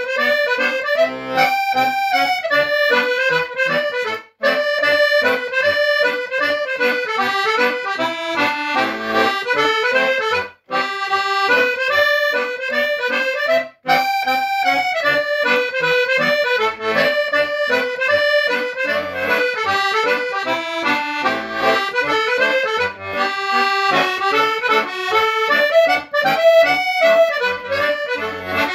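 Hohner Morino IV M piano accordion playing a schottische: a melody on the right-hand keyboard over a steady bass-and-chord beat. The sound drops out for a moment three times.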